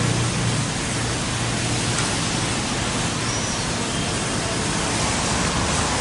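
Steady, even hiss of background noise with no distinct events.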